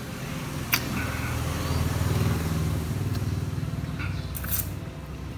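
A motor vehicle, likely a motorbike, running past, its low rumble swelling to its loudest about two seconds in and then easing off. A single sharp click comes just under a second in.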